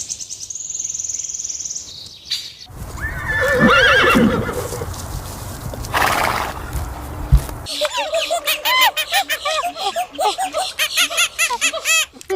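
A run of different animal calls one after another: a high, fast trill, then a few arching calls over a rushing background, then many quick, repeated chirping calls.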